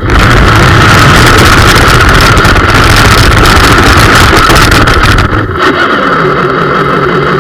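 A 1:18-scale RC Hummer H1 model's electric motor and gears running with a steady whine over loud, dense rattling noise, heard through a camera mounted on the car. About five seconds in, the sound changes to a lower pitch.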